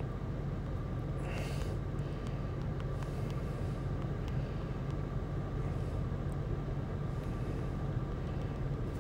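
Steady low mechanical rumble and hum with a faint high whine, and a few faint taps scattered through it.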